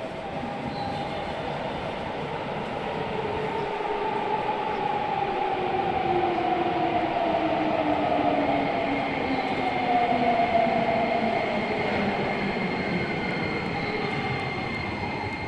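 Nagoya Municipal Subway N3000-series electric train arriving at the platform and braking, with rumble from its wheels on the rails. The whine of its inverter-driven traction motors falls steadily in pitch as it slows, and a thin high steady tone comes in near the end.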